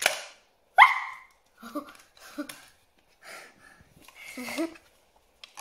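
A girl's short, loud startled squeal with a rising pitch about a second in, followed by breathy giggles and short voice sounds.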